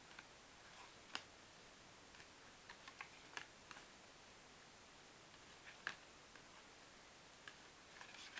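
Near silence broken by a few faint, scattered taps and light rustles from empty cardboard candy boxes being touched and lifted by hand.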